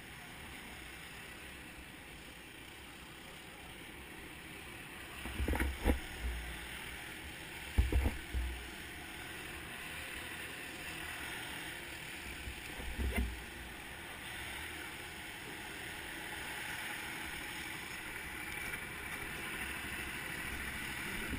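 Steady low background rumble, broken by loud dull bumps and knocks on the camera about five to six, eight and thirteen seconds in.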